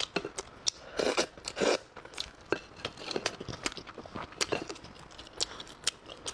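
Close-up eating sounds: chewing and mouth noises as a series of short irregular clicks, loudest about one to two seconds in.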